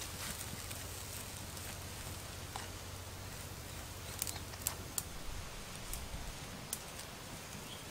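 Charcoal embers crackling and meat sizzling under a pig head roasting on a spit while it is basted with chili sauce, with a few sharp pops around the middle.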